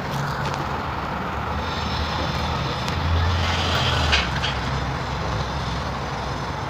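Steady low hum and hiss of room noise, with plastic food wrap crinkling and the phone being handled, loudest about three to four seconds in.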